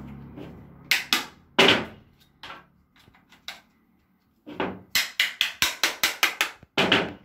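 A mallet knocking plastic corner connectors into the ends of mosquito-screen frame profiles. There are a few knocks about a second in, then a quick run of about a dozen taps, several a second, near the end.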